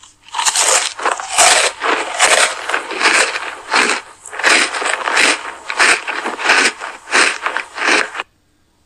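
Irregular rough scraping and rustling, about two bursts a second, from a giant panda cub scuffling and climbing on its keeper's leg. It cuts off suddenly near the end.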